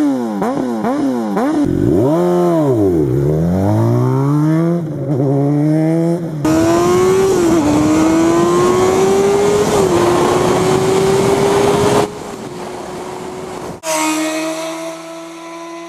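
Honda CBR sport bike's inline-four engine revved down and back up, then pulling hard through the gears, its pitch climbing with two short dips at the upshifts. About twelve seconds in it cuts off, and near the end a quieter, steady engine note follows.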